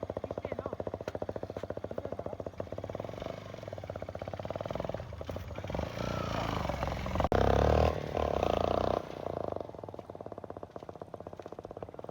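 Single-cylinder motorcycle engine idling in rapid, even pulses, blipped to higher revs in the middle, loudest about seven to eight seconds in, then settling back. The engine is misfiring, after oil fouled its spark plug.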